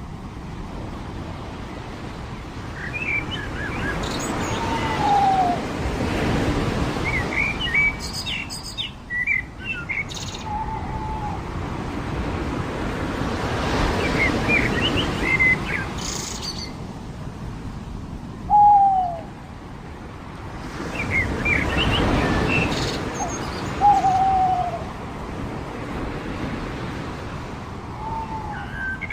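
Waves washing onto a beach in slow swells about every eight seconds, with birds calling over them: short, clear descending calls every few seconds and clusters of higher chirps.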